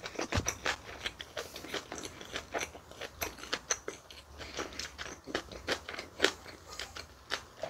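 Close-miked chewing of bibimbap and kimchi: irregular wet crunches and mouth clicks, several a second.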